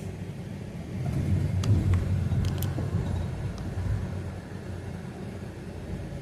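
Low steady rumble of a motor vehicle, swelling a little in the first few seconds, with a few faint clicks.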